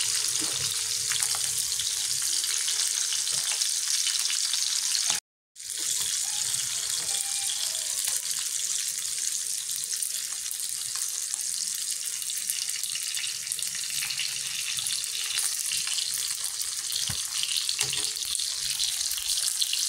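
Dried pangasius (khô cá tra) pieces sizzling in hot oil in a frying pan, a steady hiss that cuts out for about half a second some five seconds in.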